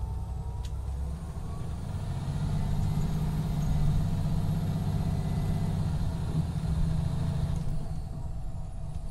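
Cummins ISX12 diesel engine of a 2017 MCI D4500CT coach bus running. It grows louder from about two seconds in and drops back near the end.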